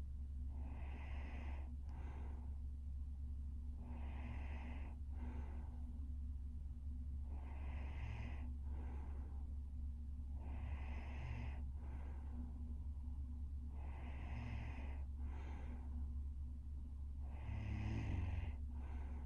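A sleeping young woman breathing heavily in light snores, six regular breaths about three and a half seconds apart, each a longer breath followed by a short one. The breath near the end is louder, with a rough snorting edge. A steady low hum runs underneath.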